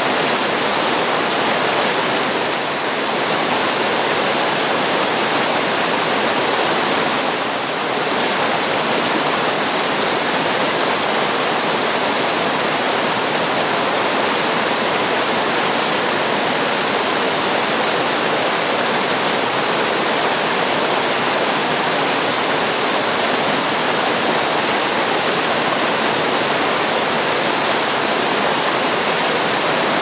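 River rapids: water pouring over a low rocky drop and rushing down the channel, a steady, unbroken rush of white water.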